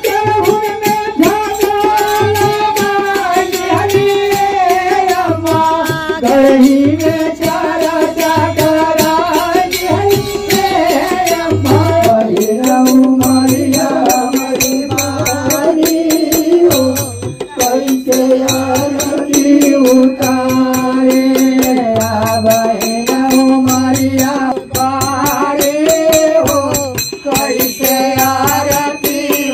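Men singing a devotional Shiv bhajan in a folk style to a dholak, whose low strokes fall about once a second, with fast high percussion strokes keeping time throughout. About twelve seconds in, the sung melody drops to a lower line.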